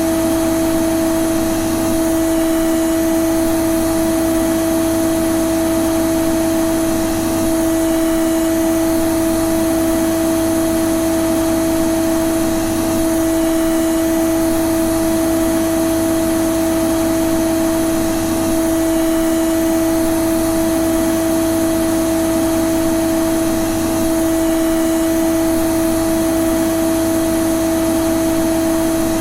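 Vacuum cleaner motor running steadily: an even whine with a strong steady hum over a wide hiss, unchanging throughout.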